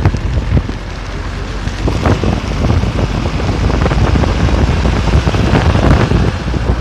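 Wind buffeting the microphone out of a moving car's window, over the tyres' rumble on a rough dirt road, with scattered knocks and rattles from the bumpy surface.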